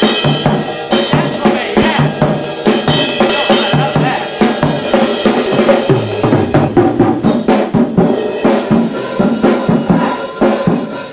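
A drum kit played in a busy, fast beat, with hits coming several times a second.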